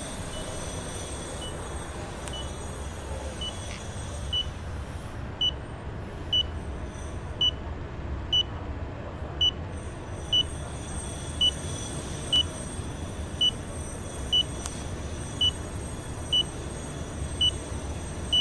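DP802i personal dosimeter beeping, short high beeps at an even pace of about one a second, fainter for the first few seconds, over a steady low background rumble.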